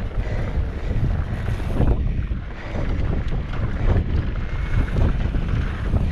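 Wind buffeting an action camera's microphone on a fast downhill mountain bike ride over a dirt trail, mixed with tyre rumble and scattered knocks and rattles from the bike.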